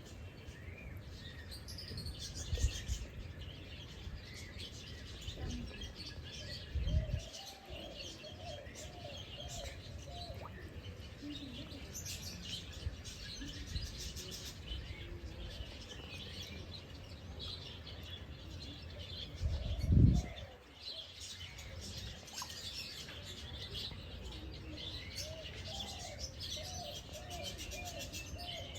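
Several birds chirping and calling, many short high chirps overlapping, with runs of short lower repeated notes now and then. A few low thumps break in, the loudest about twenty seconds in.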